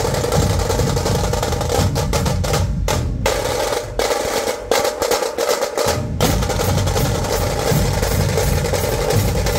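A dhol-tasha ensemble playing: many dhol barrel drums beaten with sticks, with tasha kettle drums rattling rapid strokes over them. Around the middle the deep dhol beats drop out for about two seconds while the higher rattling goes on, then the full ensemble comes back in.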